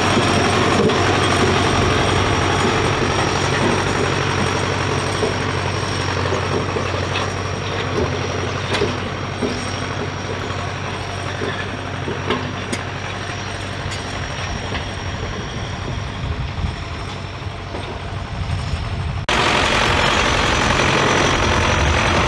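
Zetor 7745 Turbo tractor's turbo diesel engine running steadily under load as it tows a land roller. The sound grows gradually fainter as the tractor moves away, then is suddenly loud and close again about nineteen seconds in.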